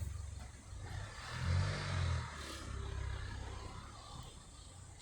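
A car passing on a nearby road, its tyre hiss and engine rumble swelling to a peak a couple of seconds in and then fading away.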